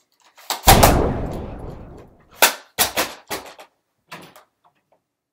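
A loud blast sound effect, a bang with a deep rumbling tail that dies away over about a second, standing in for a toy Nerf blaster's rocket launcher being fired; then a quick run of sharp clacks and knocks.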